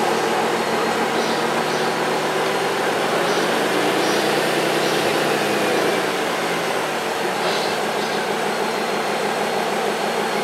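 Radio-controlled model trucks and a model wheel loader running, a steady mechanical hum with a faint whine that shifts in pitch around the middle.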